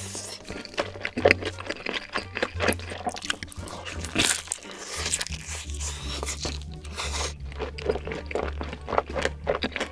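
Crisp, irregular crunching bites and chewing of food close to the microphone, over background music with a steady low bass line.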